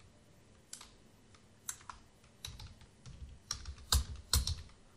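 Typing on a computer keyboard: scattered, irregular keystrokes, with the loudest few clustered about four seconds in.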